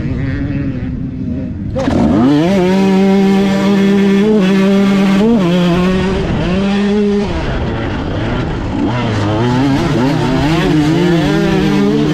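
Dirt bike engines running at the start line, then about two seconds in the rider's dirt bike launches at full throttle, its note sweeping up. It keeps accelerating hard, the pitch climbing and dropping back as it shifts up through the gears, with other bikes' engines close around.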